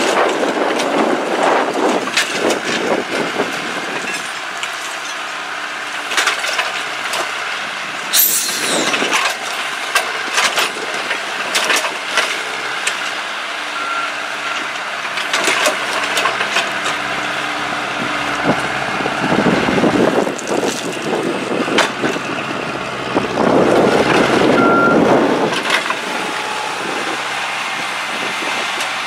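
A rail-mounted tie handler's engine runs steadily while its hydraulic grapple machine clanks and knocks over the rails. Two short beeps come about ten seconds apart.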